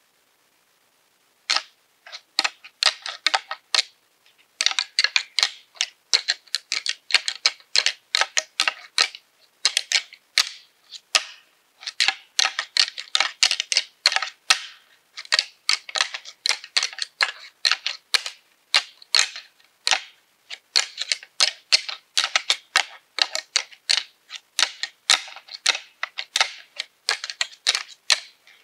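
Deer antlers (rattling horns) clashed and ground together in irregular flurries of sharp clacks, with brief pauses, starting about a second and a half in. This imitates two bucks sparring, to call a buck in.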